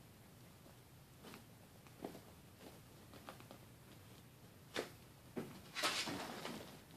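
Kittens playing in a towel-lined wicker basket: scattered light knocks and rustles of paws on wicker, towel and twine, getting louder and busier toward the end, with a longer scratchy rustle about six seconds in.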